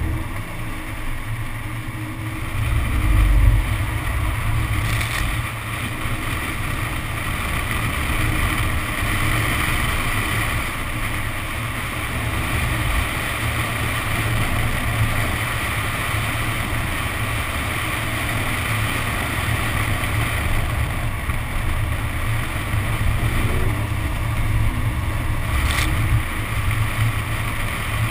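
Wind buffeting the car-mounted camera's microphone, over the steady hiss of tyres throwing spray off a flooded track, with the Nissan 370Z's V6 running underneath.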